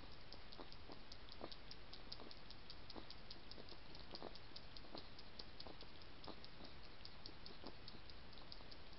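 Wild hedgehog feeding with its muzzle down in a metal tray, making soft mouth clicks about every two-thirds of a second, with a faint, fast, high ticking over a steady hiss.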